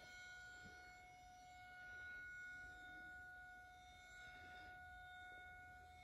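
Outdoor tornado warning siren sounding one steady tone, faint and heard as playback from a video on a screen. The tone swells and fades slowly as the siren's horn rotates.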